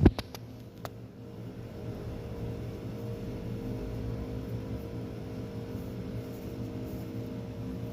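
A steady low mechanical hum, with a sharp knock at the very start and a few faint clicks within the first second.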